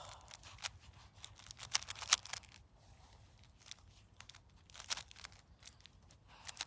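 Rubik's cube being turned by hand during a solve: quick, irregular plastic clicks and clacks as the layers rotate, in small bunches.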